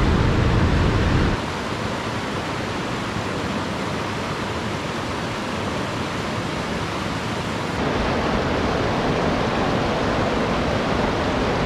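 Rushing water of a shallow, rocky mountain creek, a steady hiss with no other sound. It is louder for about the first second, drops back, then grows louder again about eight seconds in.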